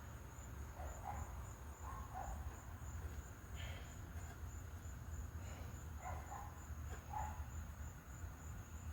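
Crickets trilling steadily in a high, finely pulsing note over a low background hum, with a few faint short sounds scattered through.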